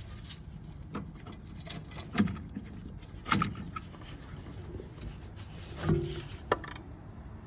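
Metal-on-metal clinks, knocks and scrapes from hand tools working the top cover loose on a car's power steering box, with several separate sharp knocks spread through it.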